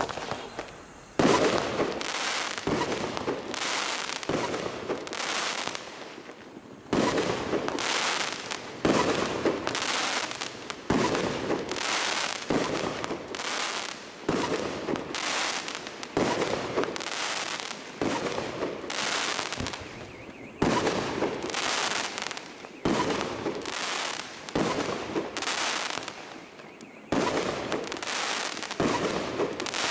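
THOR 'Zhang Fei' 19-shot fireworks battery firing shot after shot, roughly one a second, each a sharp bang with a short rush after it.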